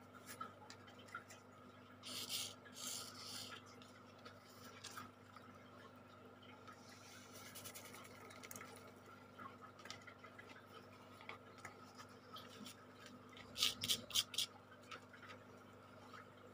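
Coloured glitter sand being sprinkled and rubbed onto an adhesive sand-painting card, and the card handled and shaken to knock off the loose sand: faint rustling and scratching over a faint steady hum, with short hissing bursts about two seconds in and a louder quick cluster of scratchy sounds near the end.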